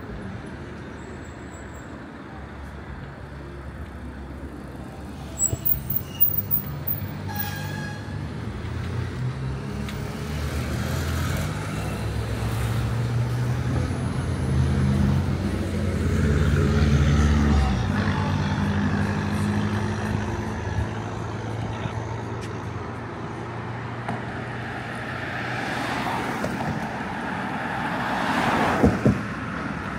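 Street traffic: a heavy vehicle's engine hums low and steady, building up and then cutting off sharply about two-thirds of the way through. A few sharp clicks and squeaks come about six seconds in, and a vehicle swells past near the end.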